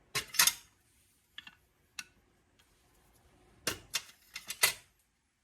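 Hand tools clicking and clinking against the metal of a diesel injection pump as it is worked on: a couple of sharp clinks at the start, two single ones, then a quick cluster of four or five about two-thirds of the way through.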